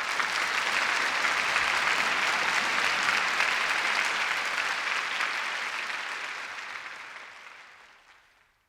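Audience applauding, a dense steady clapping that fades away toward the end and stops.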